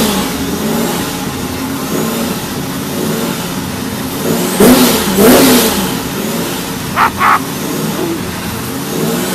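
1994 Camaro Z28's Vortech-supercharged 383 stroker V8 running, just started after sitting for a few months. The throttle is blipped twice about five seconds in, the revs rising and dropping back each time. A pair of short sharp sounds follows about seven seconds in.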